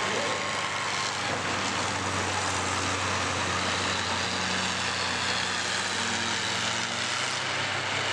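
Engines of several combine harvesters running together in a steady, unbroken drone.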